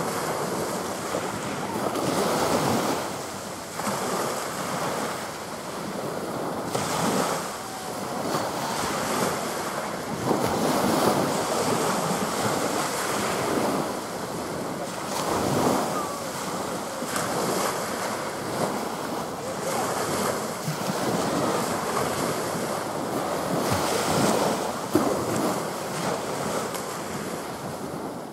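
Small waves washing onto the beach, with wind buffeting the microphone; the rushing noise swells and eases every few seconds.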